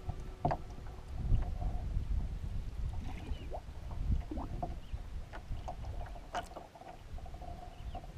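Paddling a 16-foot Prospector canoe: water lapping and splashing at the hull with paddle strokes, a few sharp knocks, and wind rumbling on the microphone.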